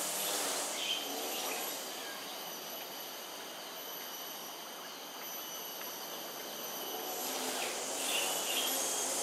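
Outdoor ambience: a steady high insect drone over a wash of distant engine noise, which dips midway and swells again near the end.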